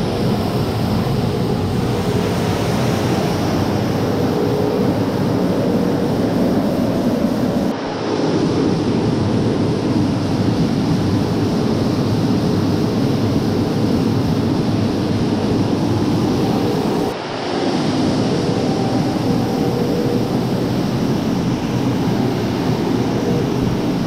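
Harvested field beans pouring from a tipped trailer into a grain elevator's intake hopper: a steady, loud rushing hiss over the hum of the running machinery. The sound briefly drops and changes about eight and again about seventeen seconds in.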